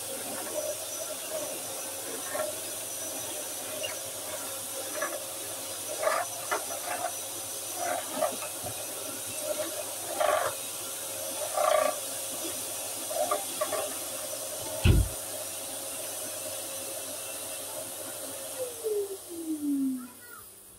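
Vacuum cleaner running with a steady hiss and whine, with scattered short knocks and rattles from the hose and nozzle and a dull thump about 15 seconds in. Near the end it is switched off, and the motor's whine falls in pitch as it spins down.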